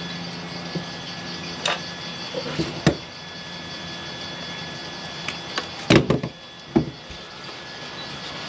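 Steady workshop hum broken by several sharp knocks and clanks of metal being handled, the loudest about six seconds in.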